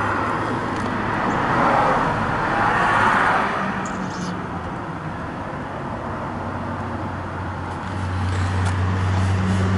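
Road traffic: a vehicle goes by, swelling and fading in the first few seconds, over a steady low engine hum that grows stronger near the end.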